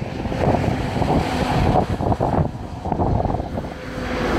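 Wind buffeting the microphone in uneven gusts.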